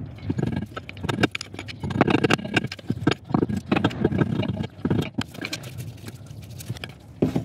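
A screwdriver scraping and tapping against the rusty front wheel hub of a Mazda Bongo, working at the ABS sensor that has swollen and stuck in its bore: an irregular run of metal scrapes and clicks.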